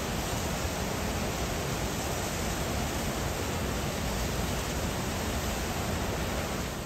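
Water rushing steadily from a dam's open spillway gates into a fast, churning river below.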